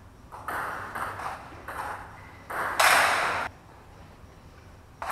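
Table tennis ball clicking off paddles and table in a rally, echoing in a large tiled hall: about six knocks roughly half a second apart, the last one the loudest, then a pause.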